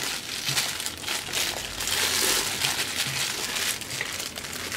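Thin polythene bag crinkling and crackling as hands press it flat over a load of whole green chilies and fold its open end over, loudest about two seconds in.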